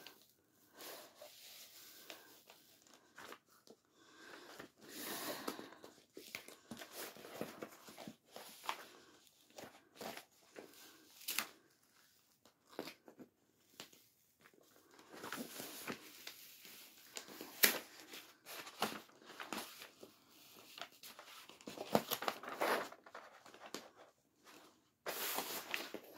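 Clear plastic protective film being slowly peeled back off the sticky adhesive of a diamond painting canvas, with irregular crackling and crinkling and sharp little clicks as the film lifts and is handled.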